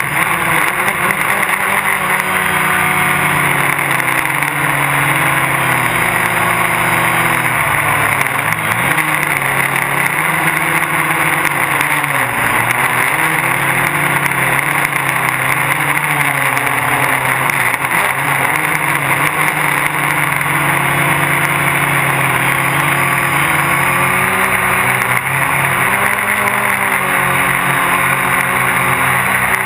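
Gaui 330X quadcopter's electric motors and propellers whirring loudly, close to the camera on board, their pitch wandering up and down as the throttle changes.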